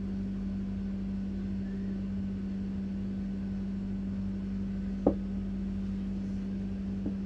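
Steady low hum with one constant tone, and a single brief knock about five seconds in.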